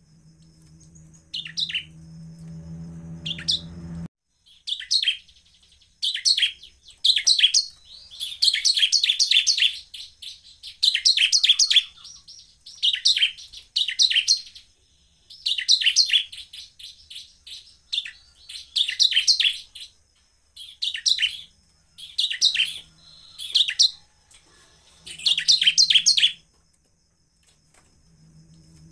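Bar-winged prinia (ciblek) singing: repeated short bursts of fast, high chipping notes, each under a second long and coming about once a second, with brief pauses near the end. A low hum sounds under the first few seconds and cuts off suddenly.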